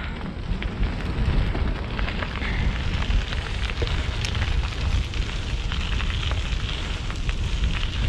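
Wind buffeting the microphone and tyre noise from a bicycle rolling on asphalt, a steady rumbling rush with scattered small clicks throughout.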